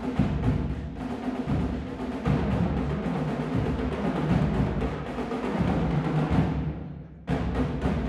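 Marching drumline of snare drums, tenor drums and bass drums playing a fast, dense cadence. About seven seconds in the drums fade and break off for a moment, then come back in together.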